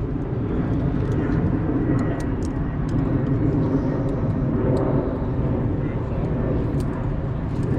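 A plane's engines droning steadily overhead, a low hum with steady tones.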